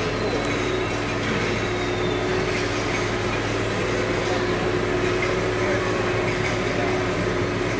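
Steady mechanical drone of a large hall full of running machinery, with a low steady hum and no distinct events.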